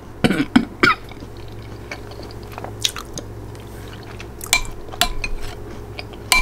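A spoon clinking and scraping in a bowl of soup, a few light separate clinks, the last near the end with a brief ring.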